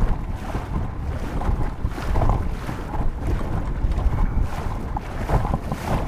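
Wind buffeting the microphone on a small open boat: a dense, uneven low rumble.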